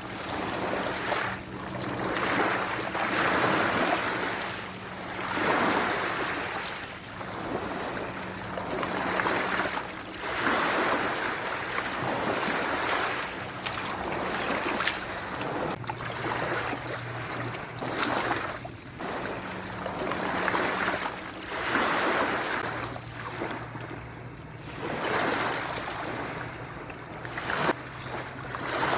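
Jet ski engine running with a steady low hum under rushing water and wind noise on the microphone, which swell and fade every two to three seconds.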